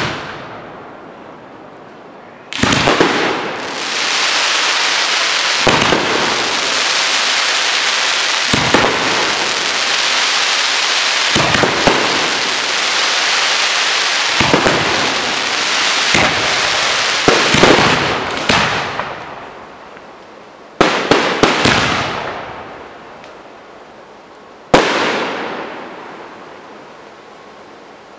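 Fireworks display heard at close range: shells start bursting suddenly about two and a half seconds in, then a long dense stretch of bangs and crackle dies down at about 19 seconds. A few more bursts follow, the last a single sharp bang near 25 seconds, each one trailing off in echo.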